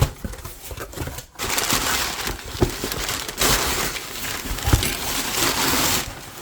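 A cardboard shipping box being unpacked by hand: packing material crinkling and rustling for several seconds, with a few light knocks.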